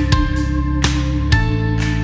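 Background music: a guitar-led track with a regular beat.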